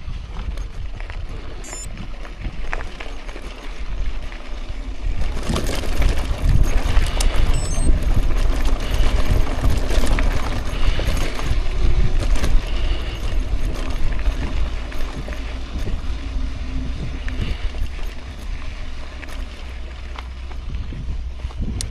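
Bicycle tyres crunching and rattling over a gravel track, loudest in the middle stretch, with wind buffeting the microphone as the bike rolls along.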